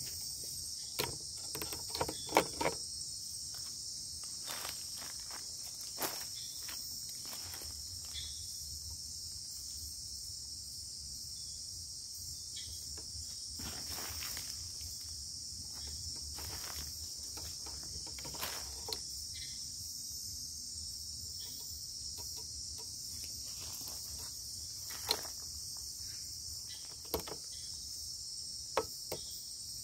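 Night-time rainforest insect chorus, a steady high-pitched shrill. Scattered rustles and light knocks from footsteps and brushed leaves as someone moves closer through the undergrowth, several in the first few seconds and a few more later.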